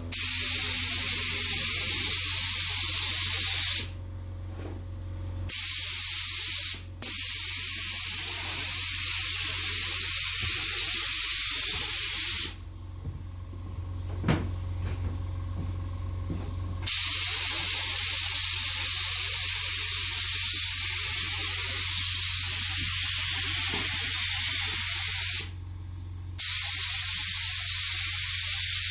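Paint sprayer hissing in long passes, stopping and starting again several times, with a steady low hum underneath.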